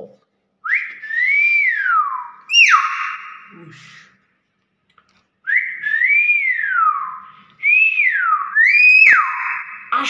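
Nias hill myna giving five loud, clear whistles, each swooping up and then falling in pitch, with a pause of about a second after the second whistle.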